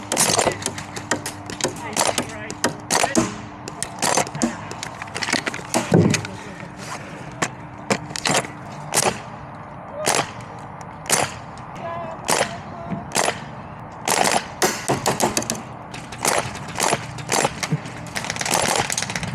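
Airsoft guns firing: sharp single pops at irregular intervals, sometimes two in quick succession.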